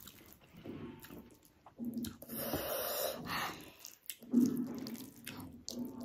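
Fingers mixing rice into egg curry gravy on a plate, with soft wet squishing and small clicks. A long noisy breath runs from about two seconds in to three and a half, and a brief louder low thump comes near four and a half seconds in.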